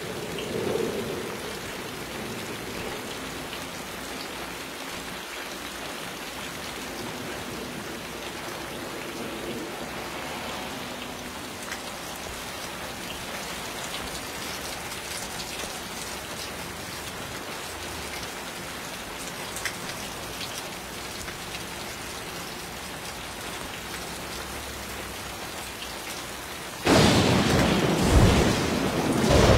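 Steady rain falling, with a sudden loud crash of thunder near the end.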